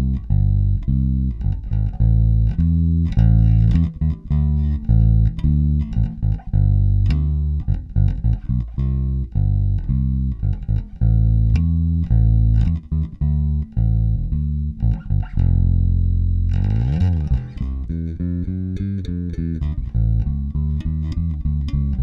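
Squier Vintage Modified Jaguar Bass Special electric bass played fingerstyle with its P-bass neck pickup and Jazz-bass bridge pickup both turned fully up, blended. A string of deep plucked notes, a slide in pitch about three quarters of the way through, then quicker, busier lines.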